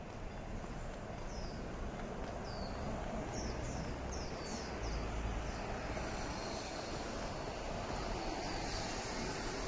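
Outdoor city ambience: a steady hum of traffic, with a small bird giving a string of short, high, falling chirps through the first half.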